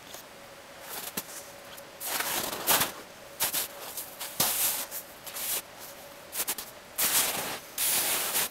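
Footsteps crunching through snow, several irregular steps from about two seconds in.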